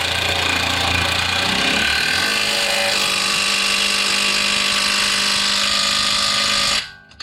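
Handheld power tool motor running steadily for about seven seconds, its pitch shifting in the first few seconds, then cutting off suddenly near the end.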